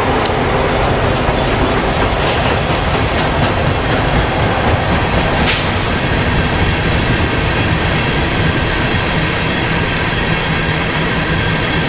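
Freight trains passing close by. Norfolk Southern diesel locomotives are running at the start, then there is the steady rumble and clatter of railcar wheels on the rails, with a few sharp clanks.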